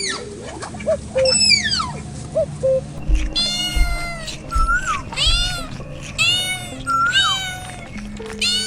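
Cat meowing: one falling meow about a second in, then a quick string of short, arching meows from about three seconds in. Background music plays underneath.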